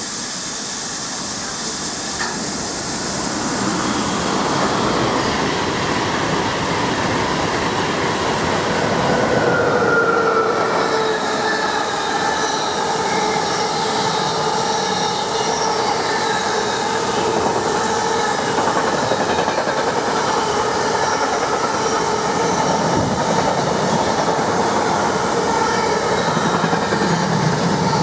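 Freight train running past at speed: a continuous rumble of wagons on the rails with a steady whining tone over it. It grows louder about four seconds in and stays loud.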